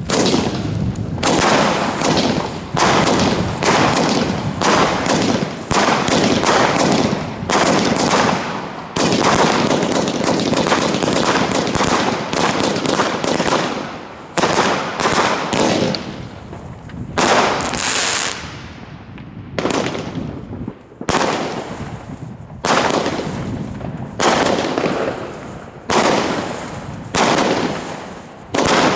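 Lesli 'Special Effects' consumer firework cake, a fused box of small-calibre tubes, firing shot after shot. The sharp reports come roughly one a second, each trailing off quickly, with a brief bright hiss about halfway through.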